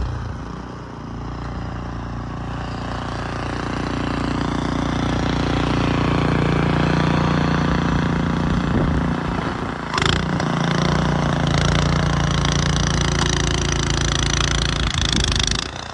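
Gas snowblower engine running steadily under load while clearing deep snow, growing louder over the first several seconds. There is a brief sharp sound about ten seconds in.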